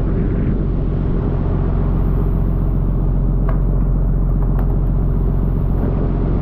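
A fishing boat's engine running with a steady low rumble under the hiss of water sprayed from the hull's sprinklers onto the sea. Two sharp clicks come a little past the middle.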